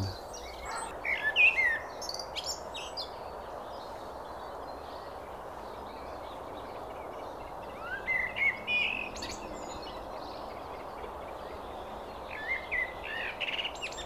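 Common blackbird singing: three short warbled phrases, about a second in, about eight seconds in and near the end, over a steady background hiss.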